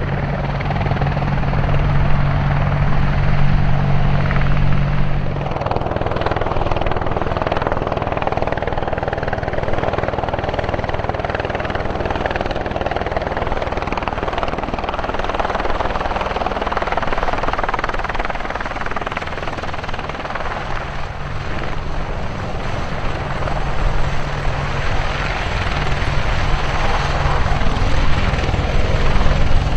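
AH-64 Apache attack helicopter's rotors and turbine engines running loudly: a steady low hum for the first five seconds or so, then a broader rushing sound while it flies, and the steady low hum again over the last several seconds.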